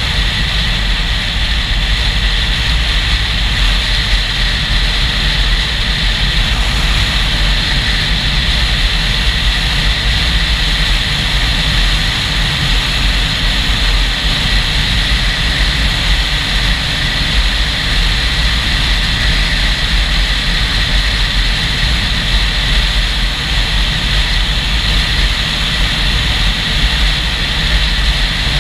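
Motorcycle riding at a steady cruising speed: wind rushing and buffeting the GoPro's microphone, with the engine and road noise underneath.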